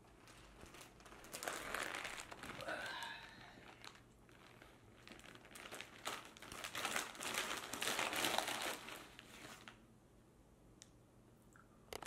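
A foil-lined paper takeout bag of fried chicken crinkling as it is opened and rummaged through, in two bouts of a few seconds each.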